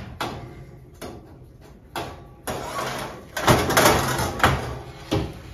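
Metal baking tray and oven door being handled as a tray goes into the oven: a run of knocks, clatters and scrapes, busiest about three and a half to four and a half seconds in.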